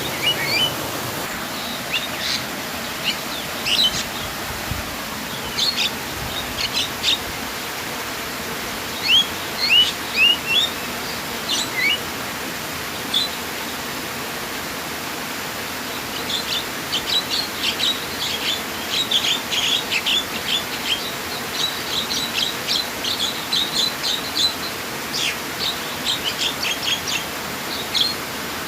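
Small birds chirping over a steady rush of flowing water. The chirps come scattered at first, then thicken into a dense, quick run of calls about halfway through.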